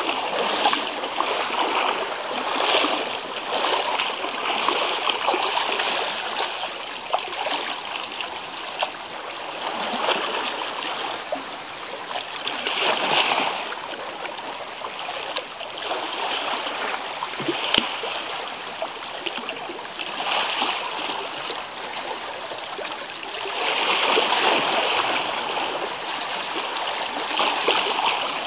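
Small sea waves washing against boulders and a pebble shore: a steady splashing rush that swells and ebbs every few seconds, with stronger surges about halfway through and near the end.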